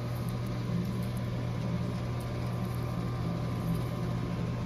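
Steady low hum of a running machine, unchanging throughout.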